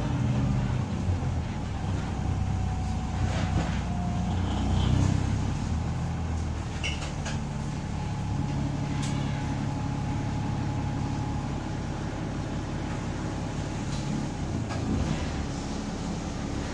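Engine of a VDL DB300 double-decker bus with Wright Gemini 2 body, heard from inside the cabin while the bus is under way. A steady low drone runs throughout, with short rattles and clicks from the body at several points.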